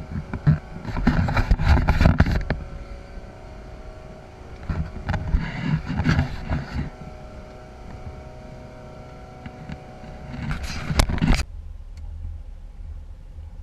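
Motorboat under way, heard from inside its enclosed cabin: a steady engine hum with three loud bursts of rushing, buffeting noise. About eleven seconds in the sound drops suddenly to a quieter low rumble.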